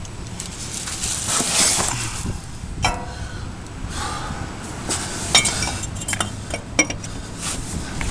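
Scattered light metallic clinks and knocks with handling noise, some strokes ringing briefly.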